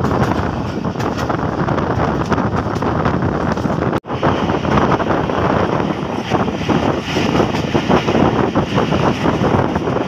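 Wind rushing over the microphone together with the running noise of a passenger train's carriages on the track, a loud steady noise. It drops out sharply for an instant about four seconds in.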